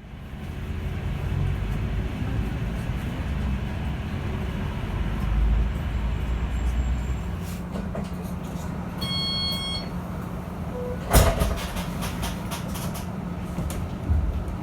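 Yutong E12 battery-electric bus on the move, a steady low rumble. About nine seconds in, a short electronic chime sounds. About eleven seconds in comes a single loud thump.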